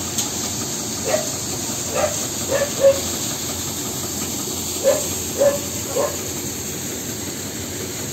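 Steady machine hiss in an open grain market, with about seven short metallic scrapes and clanks in the first six seconds as metal pans scoop grain out of a tractor trolley.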